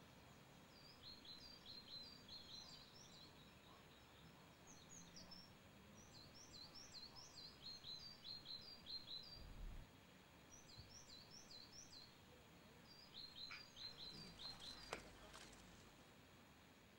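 Faint birdsong over quiet outdoor ambience: several phrases of quick, high, repeated chirps. A single soft knock near the end.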